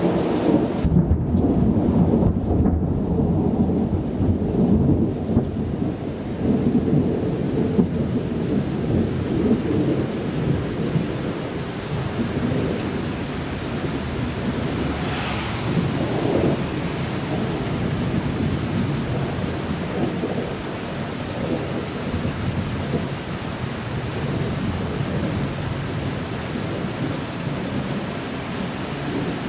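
Thunder rolling in a long low rumble that starts suddenly, is loudest over the first several seconds and slowly eases off, with rain hissing steadily throughout. A brief sharper crackle comes about halfway through.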